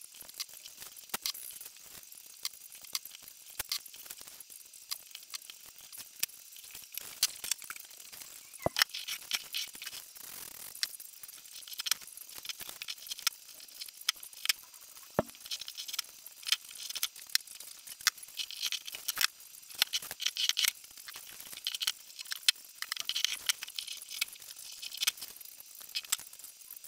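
Paper rustling and crinkling as printed paper templates are handled, laid onto MDF and smoothed down by hand, with many scattered light clicks and taps.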